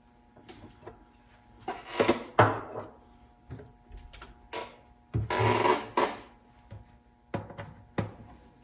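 Handling noise from a partly reassembled Sony TC-WR950 cassette deck being readied for a power-on test: scattered clicks and knocks, with two longer rustling, scraping bursts about two seconds in and again about five seconds in.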